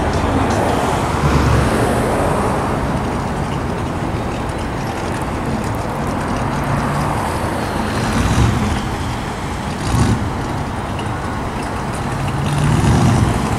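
Engine of a chopped, lowered 1950s custom car running as it drives slowly past, over steady street traffic noise, swelling briefly a few times.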